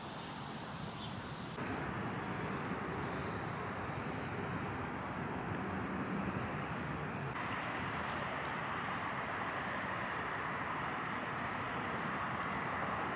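Steady outdoor city ambience: an even rush of distant traffic noise with no distinct nearby events. Its tone shifts abruptly about a second and a half in and again about seven seconds in.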